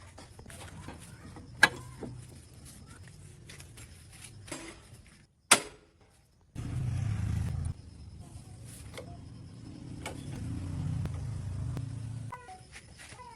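Sharp metal knocks, the loudest about five and a half seconds in, then a low steady rumble that starts abruptly about a second later and runs to about twelve seconds in.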